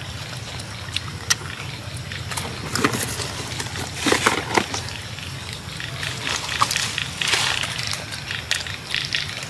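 A macaque eating rambutans: scattered clicks and crackles as the husks are bitten and torn open, with rustling as it rummages in a cardboard box. The crackling is loudest a few seconds in and again a little over seven seconds in.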